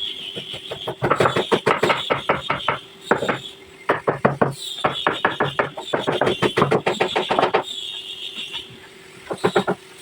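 Bursts of rapid knocking, about six to eight strikes a second, over a steady hum.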